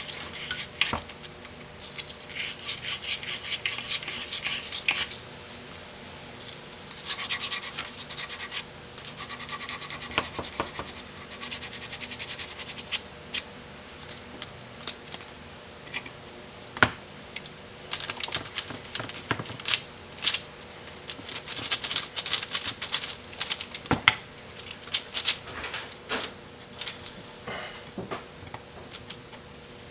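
Old sandpaper rasping in strokes on the rusted kickdown shaft of a Chrysler 727 transmission valve body, cleaning off the rust so the stuck shaft will come out. In the second half come scattered sharp clicks and light knocks.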